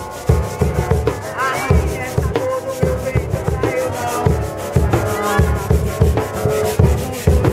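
Live street percussion music: a bass drum beating about twice a second under a dense, scraping shaker rhythm, with a melody of gliding pitched lines on top.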